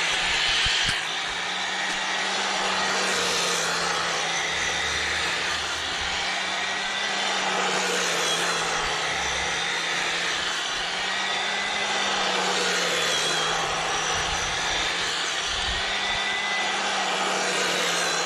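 EGO Power+ cordless power head spinning its 22-inch bristle brush attachment through dry, matted lawn grass: a steady electric motor whir over a brushing hiss. The motor's pitch sags and recovers every few seconds.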